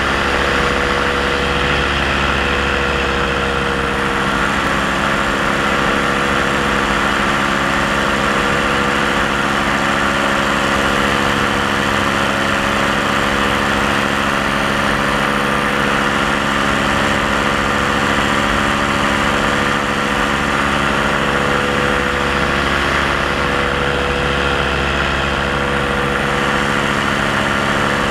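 Paramotor engine and propeller running steadily at an even pitch in flight, heard close up from the pilot's position.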